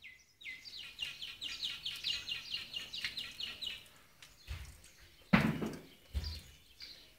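A bird singing a fast series of repeated sharp, falling notes, about five a second, for some three seconds. Then, about five seconds in, a loud thump followed by a smaller one.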